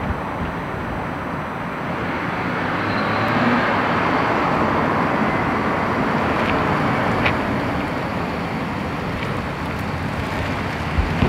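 A car driving across an open parking lot, a steady noise of engine and tyres that grows louder a few seconds in and then holds. A couple of short low thumps come near the end.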